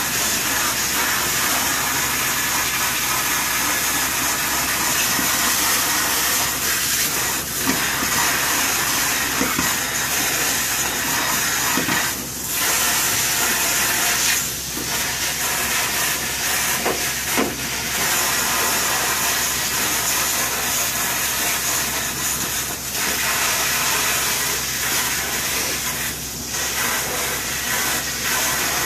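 Hot-water extraction wand spraying and vacuuming water off a tile floor: a steady loud hiss of suction. It drops briefly every few seconds as the wand is stroked and lifted.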